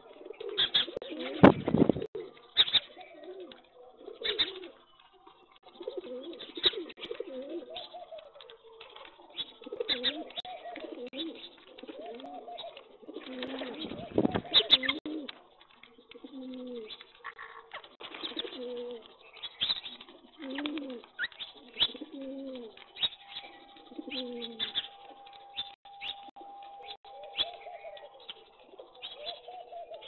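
Rock pigeons cooing over and over, each coo a low swooping call lasting under a second, with many sharp ticks and taps of beaks pecking grain on concrete. Two heavy thumps stand out, about a second and a half in and again around fourteen seconds.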